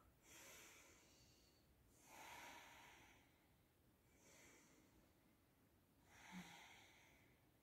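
Faint, slow deep yoga breathing: about four soft in- and out-breaths, each a second or so long, taken with the throat lock (jalandhara bandha) held.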